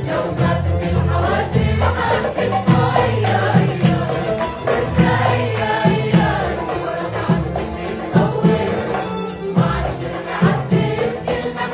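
Music with a group of voices singing over sustained bass notes and a regular percussive beat.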